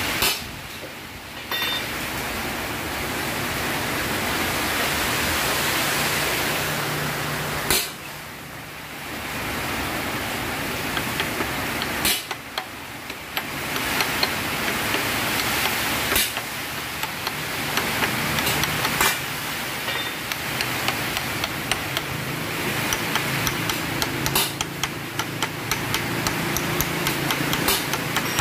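Steady workshop hiss with a low hum, dipping briefly three times, under light metal clicks and taps as a toothed timing pulley is worked onto a crankshaft nose. The clicks come thick and fast in the second half.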